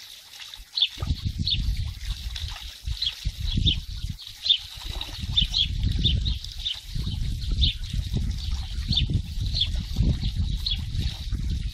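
A small bird chirps over and over in short, high chirps, over a low, uneven rumbling noise that starts about a second in.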